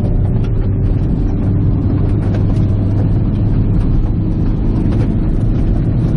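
Car driving at a steady cruising speed, heard from inside the cabin: a constant low engine drone mixed with tyre and road noise.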